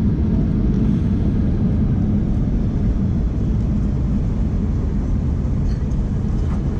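Steady low rumble inside the cabin of a Boeing 737 MAX 8 rolling on the ground just after landing: engine and runway noise with no distinct tones.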